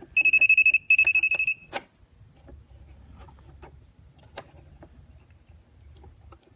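An electrical tester's beeper sounding twice, a high buzzing tone lasting about two-thirds of a second each time, signalling that it detects power in the cable. A few faint clicks of handling follow.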